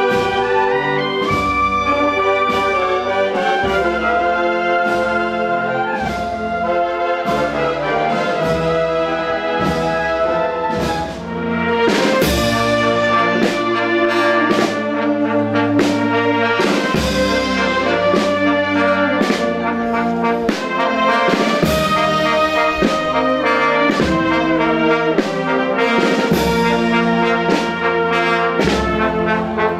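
Marching brass band playing a slow processional march, with sustained chords from tubas and other brass over a steady drum beat.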